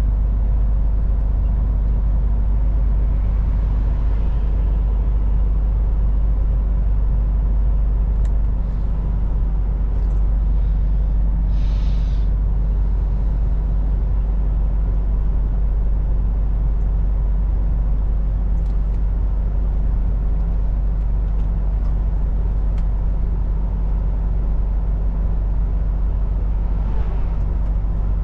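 A MAN TGX semi truck driving at steady speed: its diesel engine runs evenly under a constant low road rumble. A short hiss of air comes near the middle.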